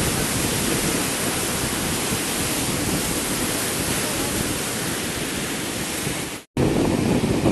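Steady rushing of wind on the microphone mixed with sea waves, cutting out for a moment about six and a half seconds in.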